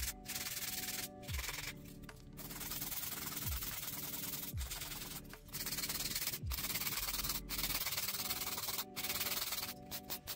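Polygel nails being filed: a gritty sanding hiss that stops and starts in short breaks as the file works the nail surface.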